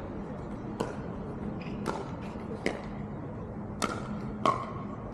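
Pickleball paddles striking a hollow plastic pickleball in a rally: about five sharp, irregularly spaced pocks, some with a brief ringing tone.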